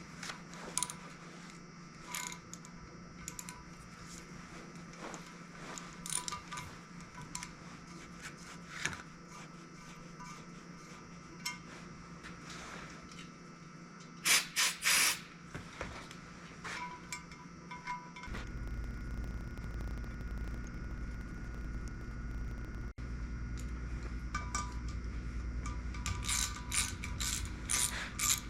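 Ratchet clicking and steel tools clinking as a tap is turned through cylinder head bolt holes to clean the threads, with a louder clatter about halfway. A steady low hum comes in about two-thirds through.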